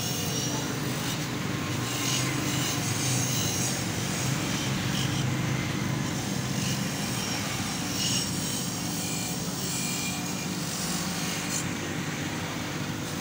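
Bench grinder motor running steadily while its spinning wheel scrubs an old motorcycle engine casing. The scraping swells and fades several times as the metal part is pressed onto the wheel and eased off.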